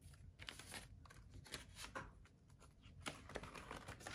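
Faint rustling and soft flicks of paper banknotes being handled and leafed through, a little busier about three seconds in.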